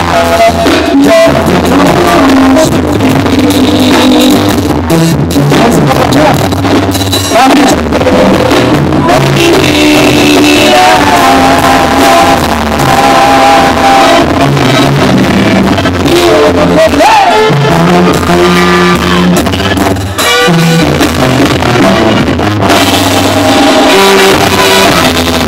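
Live Mexican banda music played loud through the PA: brass band with tuba, horns and drums, with male singers on microphones.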